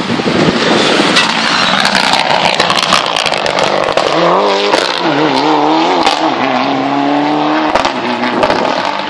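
Rally car passing at speed on a tarmac stage: loud engine and exhaust, the engine note dropping and rising through gear changes about halfway through as it comes through a junction, then holding steadier as it pulls away.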